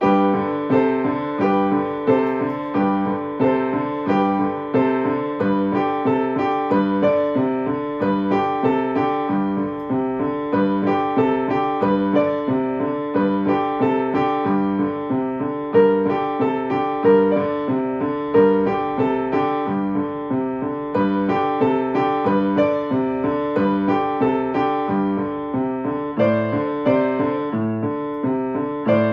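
Kawai grand piano played by a child: a steady, evenly paced piece in which a low note comes back at a regular pace under the higher notes of the tune.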